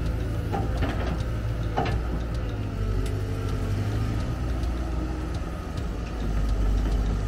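Heavy machine's engine running steadily at a low pitch, with a couple of short squeaks and scattered knocks from its working parts.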